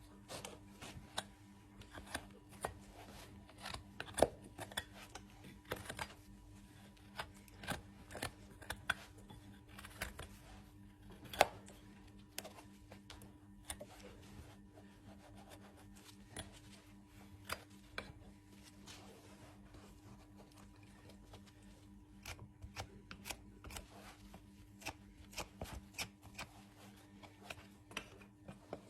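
Hoof trimming tools cutting and paring a horse's hoof horn: irregular sharp snips and scrapes, with two louder cracks, one about four seconds in and one about eleven seconds in.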